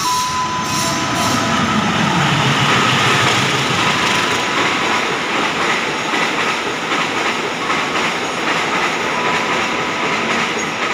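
KAI long-distance passenger train running past on the adjacent track: a loud, steady rolling rumble and clatter of wheels on rail, with faint thin wheel-squeal tones.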